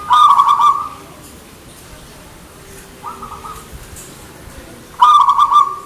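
Zebra dove (perkutut) cooing: two loud, rapid pulsed calls, one at the start and one about five seconds in, with a fainter call about three seconds in.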